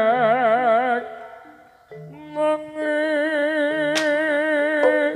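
Javanese gamelan music for a jaranan dance: a singer holds long, wavering notes over soft, low struck gamelan notes. The first note fades about a second in, and a new held note begins just before the middle.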